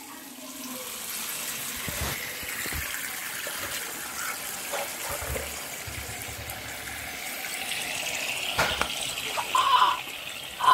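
Bathroom sink tap running steadily, water splashing into the basin, with a few knocks mixed in.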